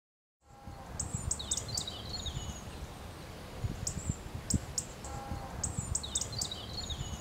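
Songbirds singing high chirps and short falling trills, the same phrase heard twice, over a steady low rumble.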